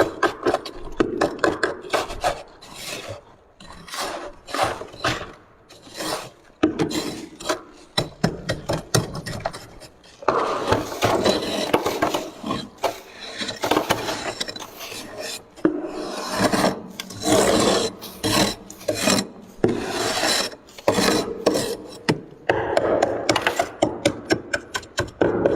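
Freezer frost rasped and crunched in a long run of quick, close-up scraping strokes, a few a second, growing denser and louder about ten seconds in.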